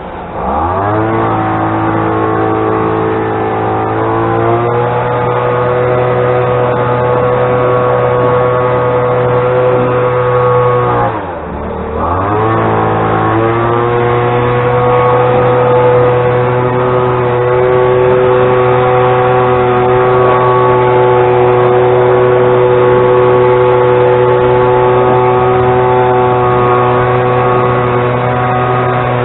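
An engine running steadily at high speed. Twice its pitch drops sharply and climbs back, once right at the start and once about eleven seconds in.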